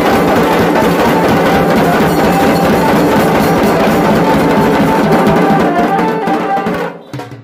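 Dhol-tasha band playing: barrel dhol drums and tasha drums beaten with sticks in a fast, dense rhythm, over a keyboard melody through horn loudspeakers. The playing breaks off abruptly near the end.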